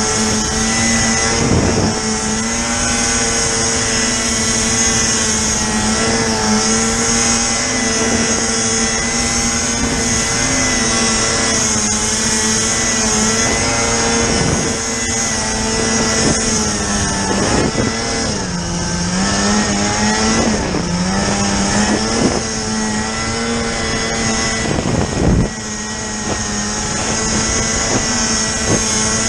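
Snowmobile engine running at high, steady revs under load, its pitch dipping twice a little past the middle before picking back up, over a constant high hiss.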